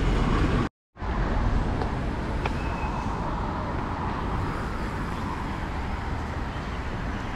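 Street traffic noise: a steady wash of passing road vehicles at a city crossing. The sound cuts out completely for a moment just under a second in.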